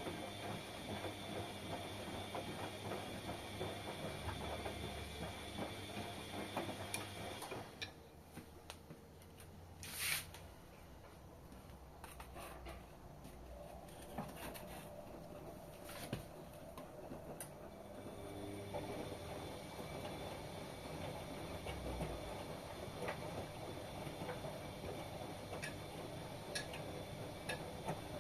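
Washing machine running a wash: the drum and motor run with a steady mechanical hum. About eight seconds in it goes quiet, with a short hiss and a few clicks, then starts running again from about eighteen seconds.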